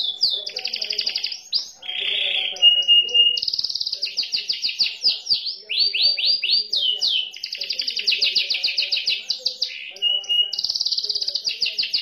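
Domestic canary singing: long, fast trills of rapidly repeated high notes, quick runs of sweeping notes and short steady whistled tones, in phrases broken by brief pauses.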